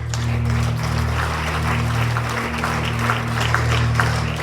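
A congregation applauding over low, sustained chords from a keyboard or organ that are held steady.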